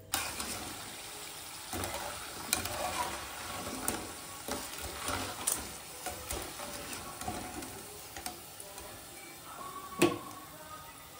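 Murukulu deep-frying in hot oil, sizzling steadily, with scattered light clicks of a wire-mesh skimmer working in the pan. One louder knock comes about ten seconds in.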